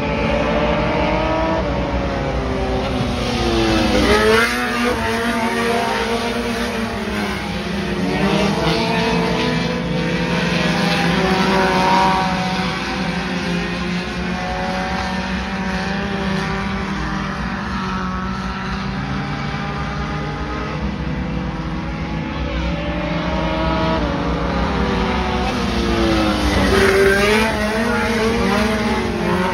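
Several front-wheel-drive race cars running at speed, their engines revving in overlapping tones. Cars sweep past close by, rising and then falling in pitch, about four seconds in and again near the end.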